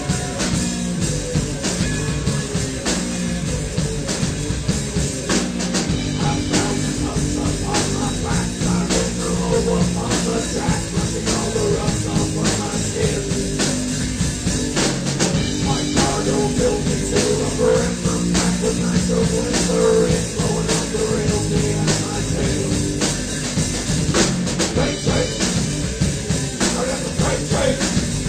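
Hard rock band playing: a drum kit keeping a steady beat under electric guitar and bass.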